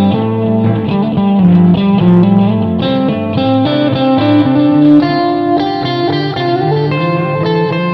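Instrumental electric guitar music: the guitar plays a melodic line of sustained, changing notes over low held notes, with no singing.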